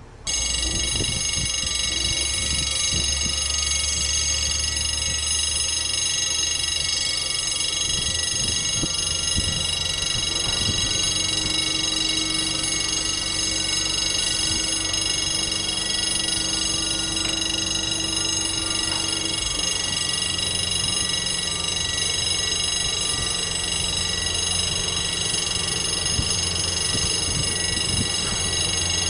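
BB 67400 diesel locomotive running slowly at the head of a heavy freight train: a low steady engine hum with a steady high-pitched whine over it. A mid-pitched hum joins for several seconds in the middle.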